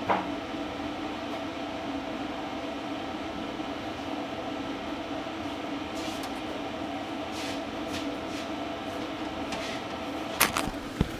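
Steady machine hum with several held tones, broken by a few sharp clicks, the loudest near the end: keys being pressed on the ProtoTrak lathe's control panel while a program is entered.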